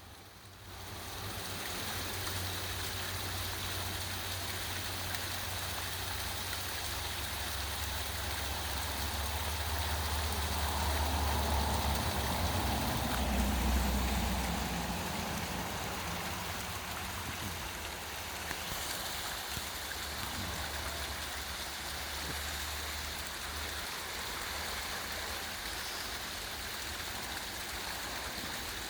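Small waterfall, water pouring and splashing in a steady rush, with a low rumble underneath that swells for a few seconds midway.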